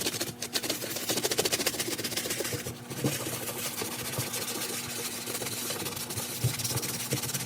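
A medium-bristle brush with detergent scrubbing a leather sneaker's upper in rapid, even back-and-forth strokes.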